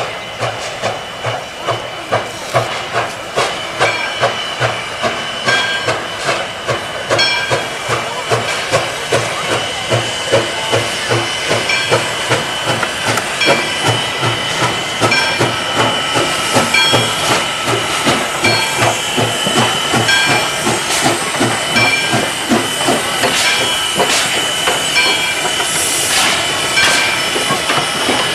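Knox & Kane steam locomotive No. 58 working a passenger train, its exhaust beating in a steady chuff about twice a second over a hiss of steam. It grows louder as the engine draws near and passes.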